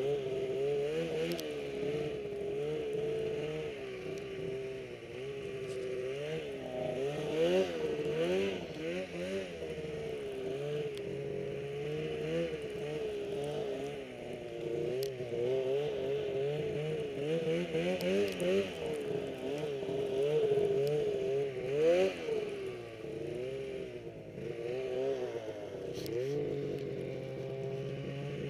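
Snowmobile engine running off-trail in deep snow, its pitch rising and falling constantly as the throttle is worked up and down, with a few sharper revs midway.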